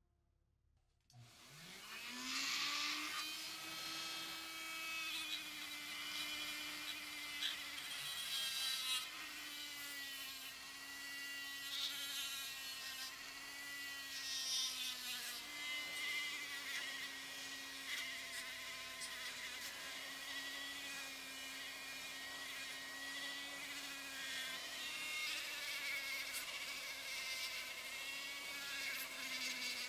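Hand-held rotary tool with a small wire brush wheel spinning up about a second in, then whining steadily as it brushes the metal parts of an old lighter, its pitch dipping now and then.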